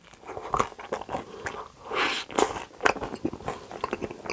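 A person biting into and chewing a cream-filled waffle, a quick run of crisp crunches and chewing clicks.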